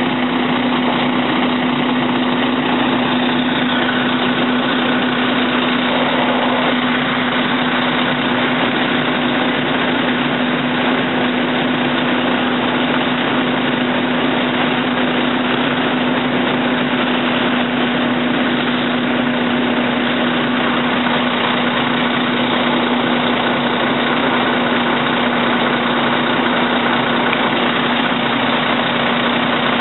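Fire engine's diesel engine running steadily at idle, with a constant low hum and an even rumble that never changes.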